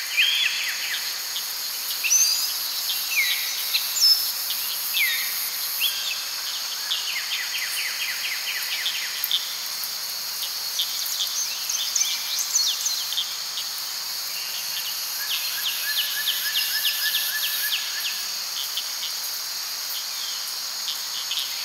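Dusk chorus of insects, a steady high-pitched trilling. Short falling bird chirps and runs of quick ticking calls come in over it now and then.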